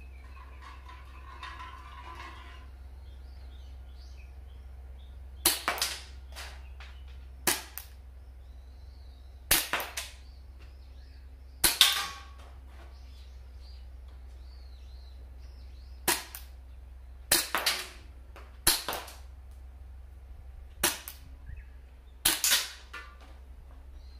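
Marushin Nambu Type 14 gas-blowback airsoft pistol fired nine single shots, one to four seconds apart. Each is a sharp pop with the slide's clack, followed by a quieter tap or two.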